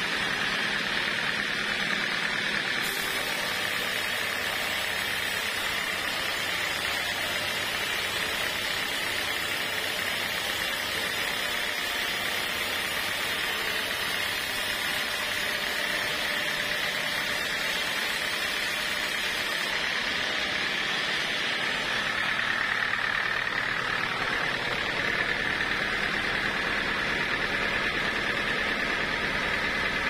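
Vertical band sawmill running steadily, its blade sawing through a squared teak beam with an even, continuous whine and hiss.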